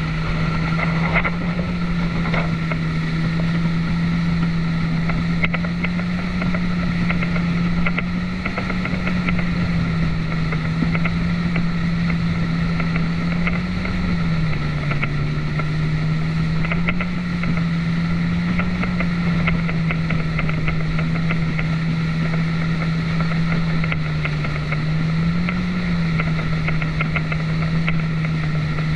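Personal watercraft (jet ski) engine running steadily at high speed, with water rushing and spraying from its jet wash. The engine note drops slightly about halfway through and rises briefly a few seconds before the end.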